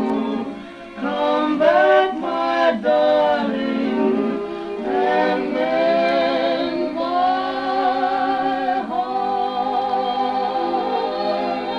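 A record playing through an Arvin solid-state portable record player and its small detachable speakers: vocal music with singing, the voices wavering on long held notes in the second half. It sounds thin, with almost no bass.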